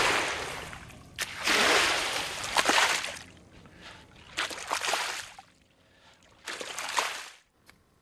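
Water sloshing and splashing in several separate swells, each a second or two long, growing fainter toward the end.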